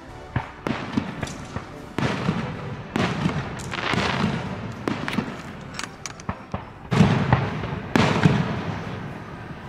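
Aerial fireworks display: shells bursting in a run of booms roughly a second apart, with smaller sharp pops and cracks between them. The loudest bursts come about seven and eight seconds in.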